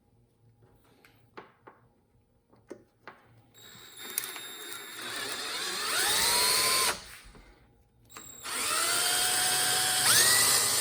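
Power drill spinning a carbon steel hole saw, in two runs of a few seconds each; each time the whine rises in pitch as the drill speeds up, then holds steady. A few light clicks of handling come before the first run.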